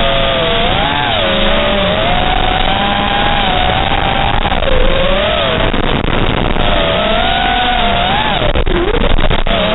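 FPV racing quadcopter's brushless motors (T-Motor 2207.5 1750KV on 6S) and props whining in flight, the pitch sliding up and down with throttle and dropping sharply a few times as the pilot chops throttle, with a couple of sharp clicks near the end.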